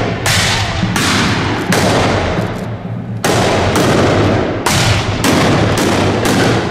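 Black-powder muskets fired one after another in a ragged salvo: about eight loud shots at uneven intervals, each with a long echoing tail.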